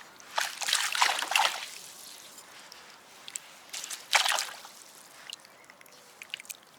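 Water splashing and sloshing at the river's edge in two short bursts, one just after the start and one about four seconds in, with a few small clicks between them.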